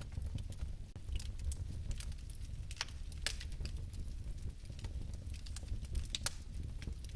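Fireplace fire crackling: irregular sharp pops and snaps over a steady low rumble of flame, with louder pops about three and six seconds in.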